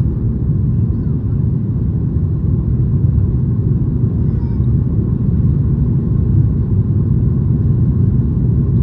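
Steady low rumble of a Boeing 737-800's CFM56 engines at climb power, mixed with air rushing past the fuselage, heard inside the cabin during the initial climb after takeoff.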